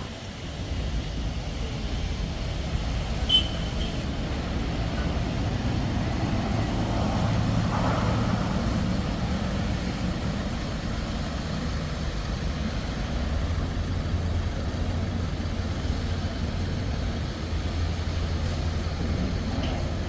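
Steady low rumble of vehicle engines and traffic, with a short sharp click about three seconds in and a deeper steady hum setting in about two-thirds of the way through.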